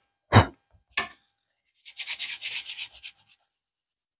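Two puffs of breath blown onto a cracked bamboo bow limb, the first the loudest, to clear dust. They are followed by about a second of fast back-and-forth sandpaper strokes on the limb at the crack.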